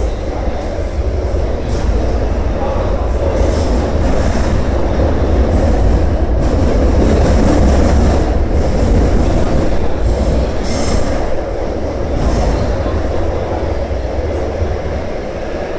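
Taipei Metro C371 train running underground, heard from inside the passenger car: a steady rumble of wheels on rail that swells to its loudest about halfway through and eases off toward the end, with a few brief high hisses.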